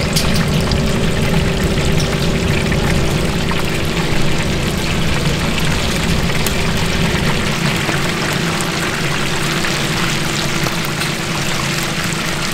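Battered chicken pieces deep-frying in a large cauldron of hot oil: a loud, steady sizzling and bubbling as more pieces are dropped in by hand. A steady low hum runs underneath.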